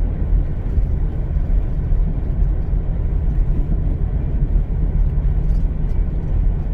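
Car driving through deep snow: a steady low rumble of engine and tyres.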